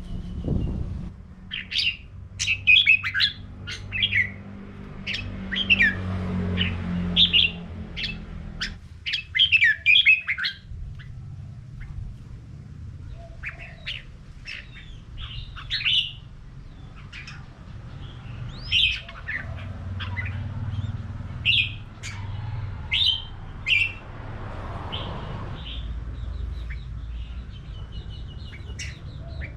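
Red-whiskered bulbuls singing: short, quick warbled phrases given in clusters with brief pauses between them, over a steady low background rumble.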